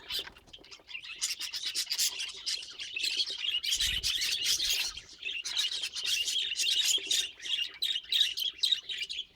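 Budgerigar chattering and warbling: a rapid, nearly unbroken run of chirps and scratchy notes, with short pauses about a second in and near five seconds.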